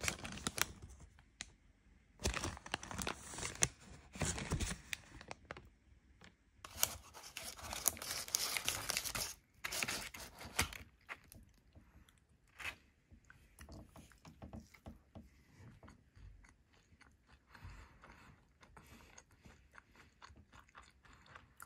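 A flaky cinnamon bun being pulled apart by hand on its paper wrapper: crackly tearing of the pastry and rustling of the paper in irregular bursts, busier in the first half and sparser later.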